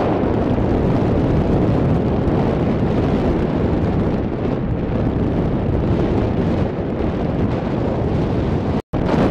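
Strong wind buffeting the microphone on the deck of a sailing ship under sail, a loud, steady rumbling rush. The sound cuts out for an instant near the end.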